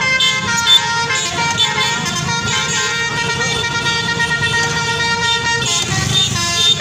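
Basuri telolet bus horn: several horn tones sounding together, stepping through a melody of held notes.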